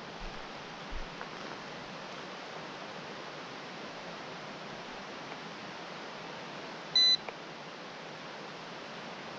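Steady hiss, with a single short, high electronic beep from a handheld drone remote controller about seven seconds in.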